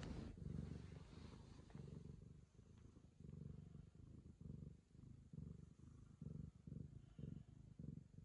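Ragamuffin cat purring close up, a low steady purr that swells and fades in short pulses.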